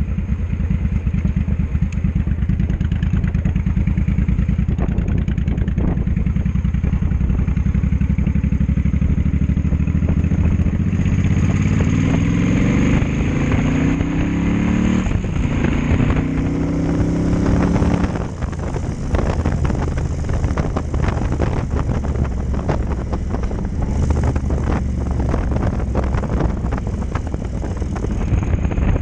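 Cruiser motorcycle engine running under way with a steady low pulse. From about 11 s in, its revs rise twice with a brief drop between. After that it settles back under a rush of wind buffeting the microphone.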